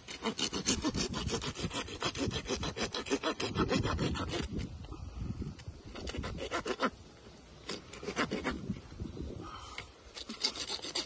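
Saw cutting through a deer's neck bone to take off the antlered head, in quick, even rasping strokes with a couple of short pauses.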